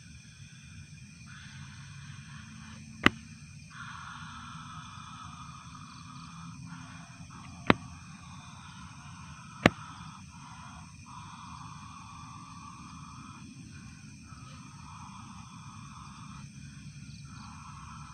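Night insects calling in long bouts with short gaps. Three sharp knocks, the loudest sounds, come about three, seven and a half and nine and a half seconds in.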